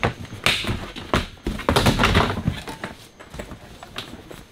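Nylon sleeping bag rustling and bumping as a person settles down onto the floor of an inflatable boat, with close handling noise. Loudest in the middle, dying down near the end.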